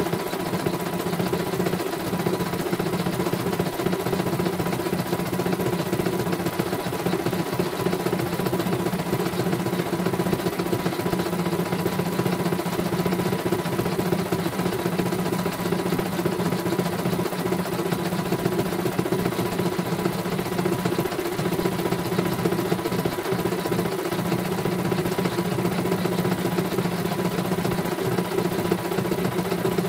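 CNY portable computerized embroidery machine running steadily, its needle stitching rapidly with a constant motor hum while the embroidery unit drives the hoop through the design.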